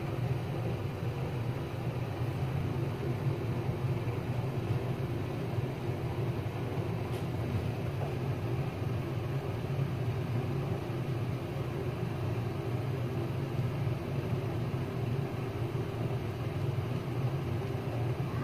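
Steady low rumble of background room noise, even throughout, with a faint click about seven seconds in.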